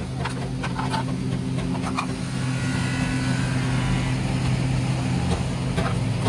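An engine running steadily with an even hum, while a plastic tail-light housing is handled, giving a few light clicks and knocks in the first couple of seconds.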